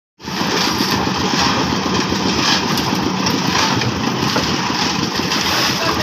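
Engine of a concrete mixer machine with a lift, running steadily with a fast, even beat.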